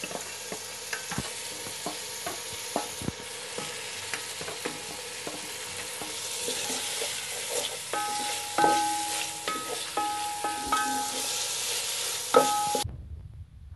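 Meat and onions sizzling in hot oil in a steel pot while a wooden spoon stirs, scraping and knocking against the pot. In the second half the pot gives several short metallic rings when knocked. The sizzling cuts off suddenly near the end.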